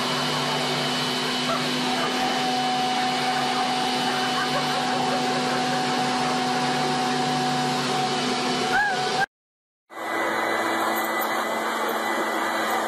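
Corded electric leaf blower running steadily with a whining motor. The sound cuts off suddenly about nine seconds in, and after a short silence another leaf blower runs steadily.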